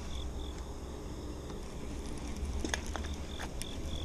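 Crickets chirping steadily at about three even chirps a second, over a low rumble. A few soft clicks come between about two and a half and three and a half seconds in, as a baitcasting reel is cranked against a hooked fish.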